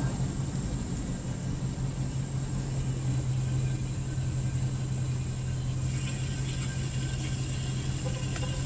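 A steady low mechanical hum, like a running engine or machine, over low background rumble, with a constant thin high-pitched whine and a few faint ticks near the end.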